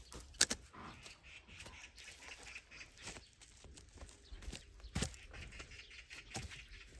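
Split firewood logs knocking against one another as they are handled and stacked: a few sharp wooden clacks, the loudest about half a second in, with lighter knocks and rustles between.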